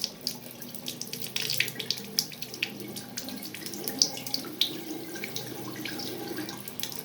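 Water running from a Vidima mixing tap with no aerator fitted, splashing into the sink with an irregular spatter. The stream is uneven because the aerator is missing.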